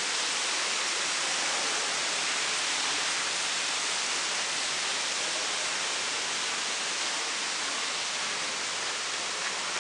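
A steady, even rushing hiss with no pitch or rhythm.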